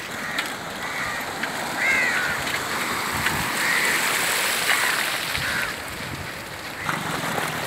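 Fast-flowing muddy floodwater rushing steadily over ground and into flooded fields. A bird calls several short times over it.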